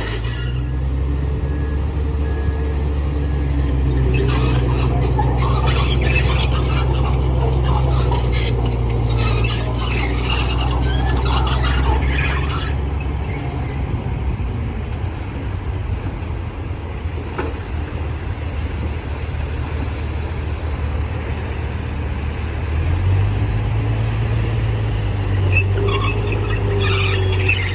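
Heavy diesel engine of a crawler bulldozer running steadily, with metallic squeals and clanks from its steel tracks through the first half. The engine note drops about halfway through and picks up again near the end.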